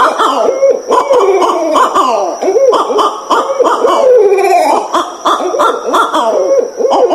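Barred owls caterwauling: a continuous run of wild, overlapping cackling and hooting calls that swoop up and down in pitch without a break.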